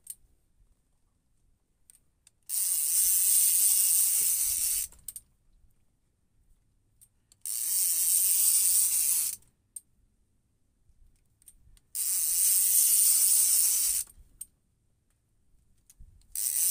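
Multiplier fishing reel being wound in against a hooked fish: a rasping, ratchet-like whir in spells of about two seconds, three times, with a fourth starting near the end, and near silence between.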